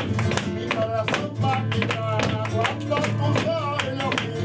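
Sevillanas played live on flamenco guitar, with a singer's voice bending through the melody and many sharp percussive clicks.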